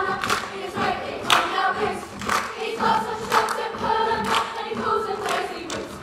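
A large group of voices singing together in unison, over sharp percussive hits from the performers keeping a steady beat of about two a second.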